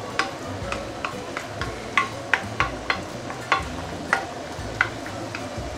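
Wooden spatula scraping and knocking irregularly against a stainless steel wok as chicken pieces are stirred in soy-based sauce, over a steady sizzle of the sauce heating towards the boil.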